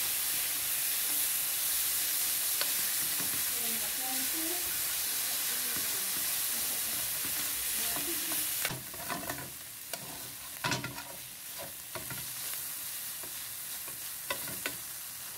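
Flaked salt fish sizzling as it fries in hot oil in a stainless steel pan, frying toward a light crunch, while a utensil stirs and scrapes it around the pan. About nine seconds in, the sizzle drops quieter and separate scrapes of the utensil on the pan stand out.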